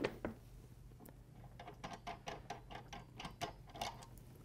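Faint metallic clicking and ticking as test-kit hose fittings are unthreaded and pulled off a backflow assembly's brass test cocks. There are a few clicks at first, then a denser run of small clicks from about a second and a half in.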